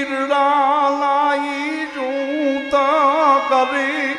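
A male voice singing a slow, drawn-out verse of a Gujarati devotional folk song, holding wavering notes over a steady harmonium accompaniment.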